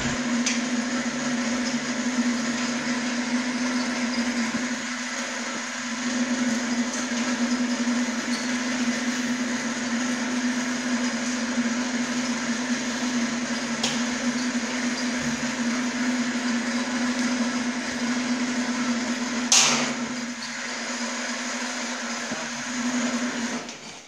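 Electric hoist motor running with a steady, strong hum as it lifts the inner liner out of a carbonization furnace. A single sharp metallic clank about twenty seconds in.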